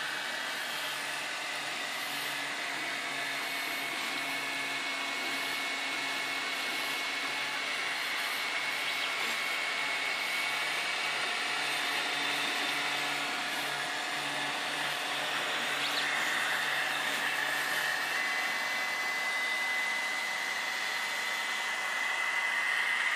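RepRapPro Ormerod 3D printer running a print: a steady fan whir with stepper motors whining at steady pitches that shift now and then as the print head moves.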